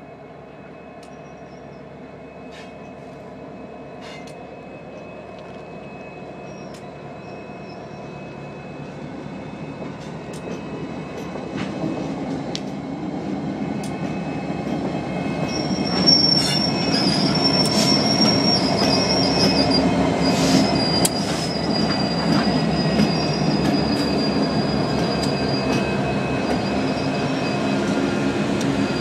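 Union Pacific diesel locomotives rolling slowly towards and past, their engines' rumble growing steadily louder as they come closer. From a little past halfway, a high wheel squeal sounds over the rumble for several seconds, with scattered metallic clicks from the wheels and rails.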